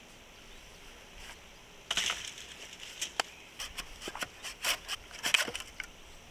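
Irregular run of sharp woody snaps and cracks, about a dozen over three or four seconds, starting about two seconds in: wood, such as a branch or sticks, being snapped or trimmed.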